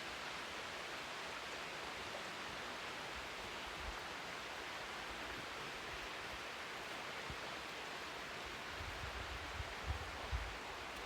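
Steady rush of a waterfall, an even noise. In the last couple of seconds low buffets of wind hit the microphone.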